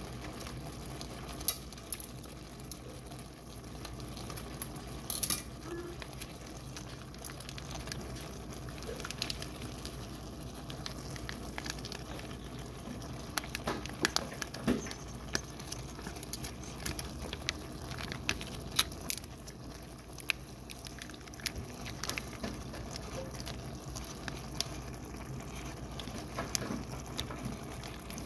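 Skillet of cheeseburger macaroni and ground meat simmering on the stove: a steady faint sizzle with frequent small pops and crackles.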